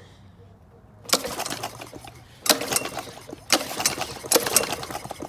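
Honda GC190 single-cylinder engine turned over with the recoil starter, its spark plug removed: four rough hissing pulls about a second apart as the piston pumps trapped water out of the spark plug hole after a hydrolock.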